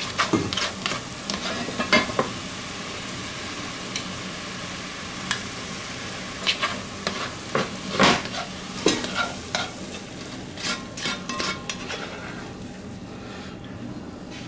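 Diced onions cooking in a little beef bouillon in a cast-iron Dutch oven, with a steady hiss. A spoon scrapes and knocks against the pot again and again as the onions are stirred and scooped out.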